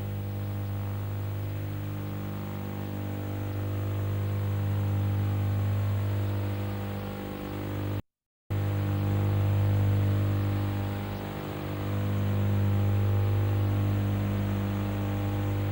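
Steady electrical hum on the tape transfer, a buzz built from evenly spaced tones that slowly swells and fades. It cuts to silence for about half a second around the middle, where the tape glitches.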